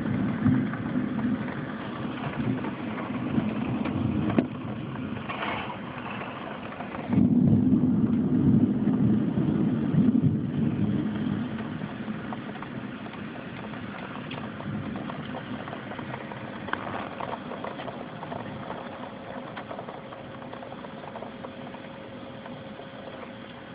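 Storm winds and rain, a steady low roar that surges in strong gusts at the start and again about seven seconds in, then slowly eases.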